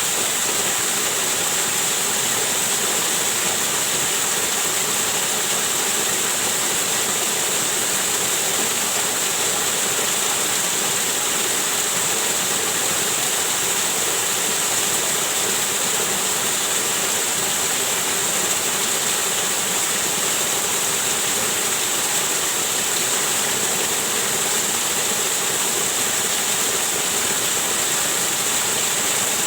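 Waterfall running: a steady, unchanging rush of falling water with a strong high hiss.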